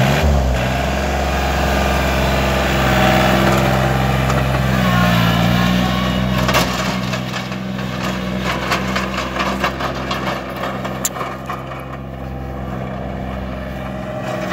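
A John Deere 955 compact tractor's three-cylinder diesel revs up as the tractor pulls away on its hydrostatic drive in high range. The engine then runs steadily and grows fainter as the tractor drives off. Scattered clicks come about halfway through.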